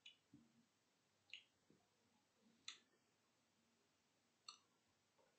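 Near silence with four faint, short clicks spread a second or so apart.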